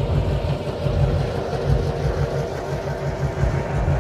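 Diesel locomotive engine running with a steady low rumble as the passenger train rolls past.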